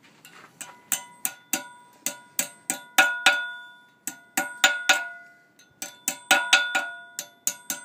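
Hammer striking old rusty wire on a steel anvil to straighten it, each blow making the anvil ring with a bright metallic ring. Quick blows, about three a second, come in runs with short pauses, the longest about four seconds in.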